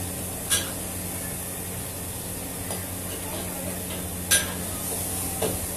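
Hokkien mee noodles sizzling steadily in a wok over a gas flame as a metal ladle stirs them. There are two sharp clanks of the ladle against the wok, about half a second in and about four seconds in.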